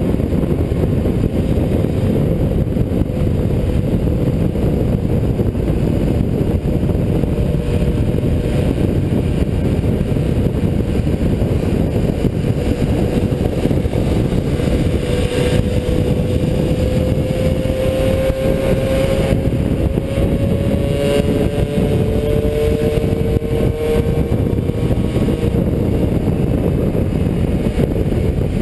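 Wind buffeting the microphone of a moving 50cc two-stroke moped, mixed with the buzz of moped engines. About halfway through, a moped engine's note rises steadily in pitch, and a second engine note comes in a few seconds later.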